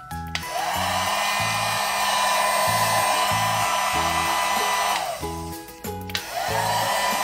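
Toy hair dryer running: a steady whirring hiss with a whine, cutting off about five seconds in and starting again about a second later. Background music with a repeating bass line plays underneath.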